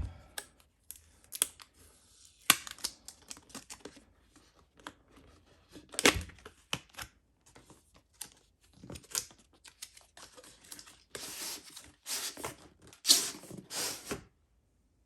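Cardboard packaging of a keyboard box being opened by hand: tearing, scraping and rustling of cardboard and paper, with scattered sharp taps and clicks. The handling grows busiest in the last few seconds.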